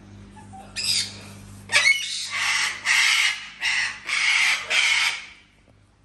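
Parrot squawking: a series of about seven loud, harsh screeches, the last ending a little after five seconds in.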